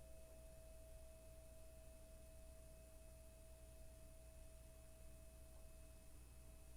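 A singing bowl's faint, steady ring: one pure sustained note with a fainter higher overtone, over a low hum.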